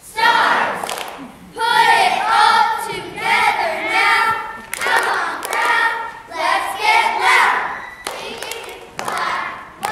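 A group of young cheerleaders chanting a cheer in unison, in short rhythmic shouted phrases, with a few sharp claps.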